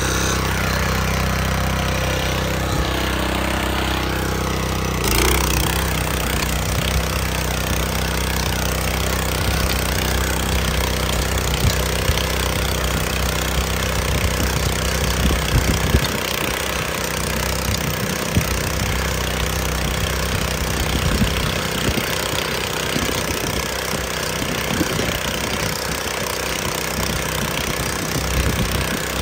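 Tractor engine running steadily while it pulls a wire-tine weeder through dry soil, with scattered light clicks throughout.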